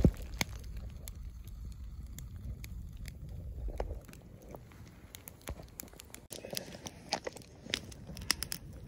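Wood campfire crackling, with irregular pops and snaps. A low rumble underneath stops about four seconds in.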